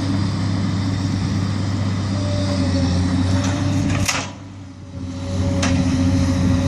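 An engine running steadily with a low drone. There is a sharp click about four seconds in, then the sound drops briefly and comes back up.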